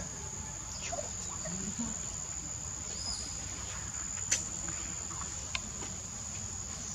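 Steady high-pitched drone of insects in the undergrowth, one unbroken tone, over a low steady rumble. A few short clicks stand out, the loudest about four seconds in and a smaller one a little over a second later.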